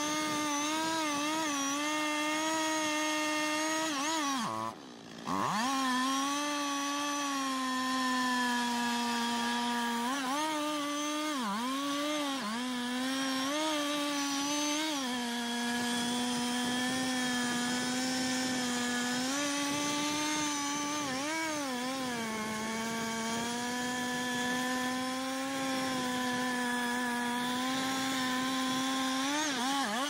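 Large Stihl two-stroke chainsaw running near full throttle while cutting into a big tree trunk. Its pitch sags briefly several times as the chain loads up in the wood, and the sound breaks off for a moment about five seconds in.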